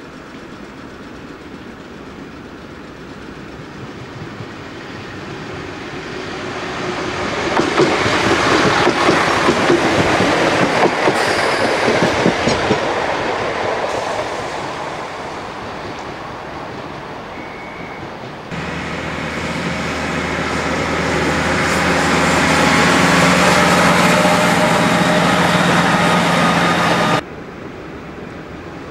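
A train passing at speed: the rail noise builds to a peak with wheels clattering over the rail joints, then fades. Partway through, another train's sound begins abruptly, a steady low engine drone with rail noise over it, and cuts off suddenly near the end.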